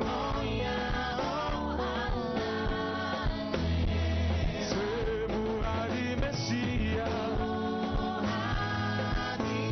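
Music with a voice singing over a band, with sustained bass notes.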